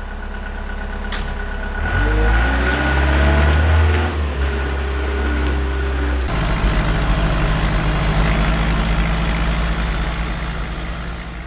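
Kramer 320 wheel loader's diesel engine working, its pitch rising and falling as it is revved. About six seconds in, the sound cuts abruptly to a different engine running steadily, heard from inside a vehicle cab on the move.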